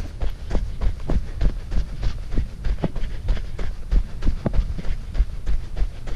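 Running footfalls in running shoes on a packed-snow road, steady rhythmic thumps at about three strides a second.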